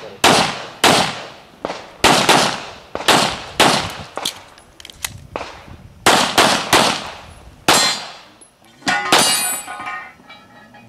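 A string of handgun shots fired in quick pairs and clusters, each crack with a short echoing tail, about eighteen in all. About nine seconds in, a shot is followed by a sustained metallic ringing.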